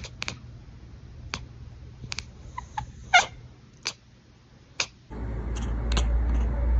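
Grey tabby cat chattering: quick, separate clicks and short chirps, the loudest chirp about three seconds in. About five seconds in, a steady low rumbling noise starts abruptly.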